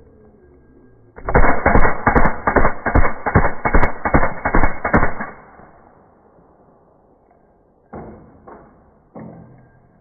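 A rapid string of about a dozen shots from a .22 LR M16-style rifle, heard in slow motion so each shot is drawn out and dull, lasting about four seconds. Two more single sharp reports or clacks follow near the end.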